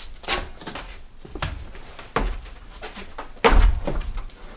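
A large LP multi-use ceiling panel being handled and lifted overhead: a run of knocks and thuds, the loudest and deepest about three and a half seconds in.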